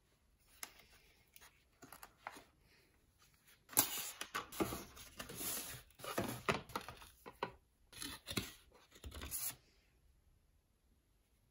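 Headphone packaging being handled and unwrapped: a few light rustles, then several seconds of dense rustling and tearing noises that stop a couple of seconds before the end.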